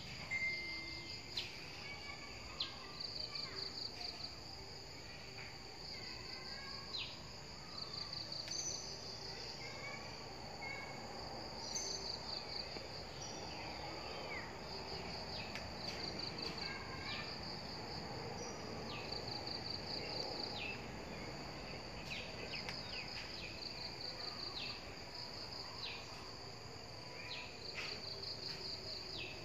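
Insects trilling in short, high, pulsed bursts that repeat every second or two, with scattered brief chirps that slide down in pitch, over a soft steady outdoor background.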